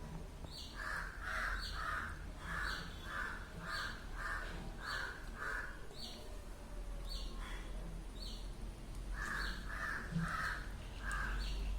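Birds calling: a run of harsh calls, about two a second, that pauses and comes back near the end. A higher, shorter chirp repeats throughout.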